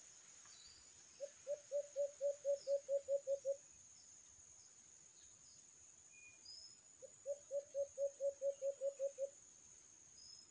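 A dove calling: two quick series of about eleven low hooting notes, each series lasting about two seconds, the first starting about a second in and the second about seven seconds in. A steady high insect buzz runs underneath.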